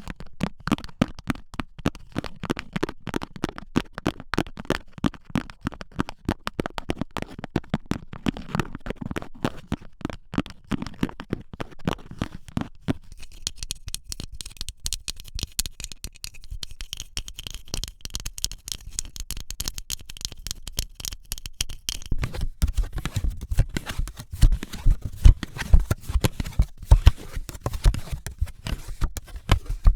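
Long fingernails tapping quickly on textured surfaces. Partway through, they turn to a lighter scratching and rubbing, then come heavier, deeper, louder taps for the last several seconds.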